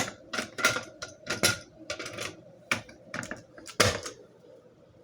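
A string of irregular clicks and knocks from a manual fire alarm pull station being reset with its key. The sharpest knock comes about four seconds in.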